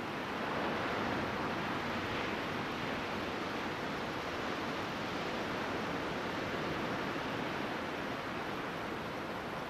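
Ocean surf breaking and washing up a sandy beach: a steady rushing hiss that swells slightly about a second in.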